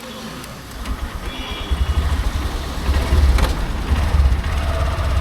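Motorcycle engine running as the bike gets moving, with a low, uneven rumble that grows louder from about a second in.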